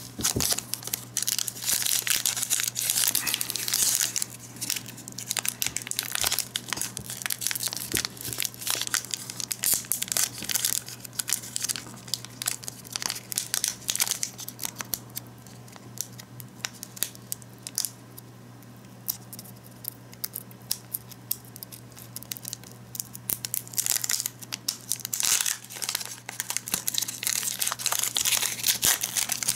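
A foil Pokémon booster pack wrapper crinkling and tearing as it is opened by hand. The crinkling is dense for the first half, thins out for a spell past the middle, and picks up again near the end.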